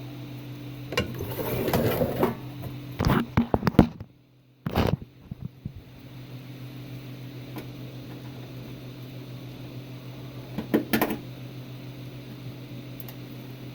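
Range hood fan motor running with a steady hum. Handling noise on the hood comes through it: a burst of clicks and rattling in the first few seconds, and a couple more clicks about eleven seconds in.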